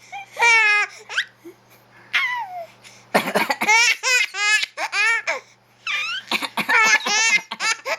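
Baby laughing in several high-pitched bouts, the longest a run of quick chuckles in the middle.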